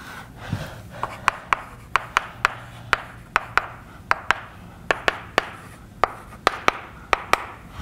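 Chalk writing on a blackboard: quick, irregular taps and short scrapes, about three a second.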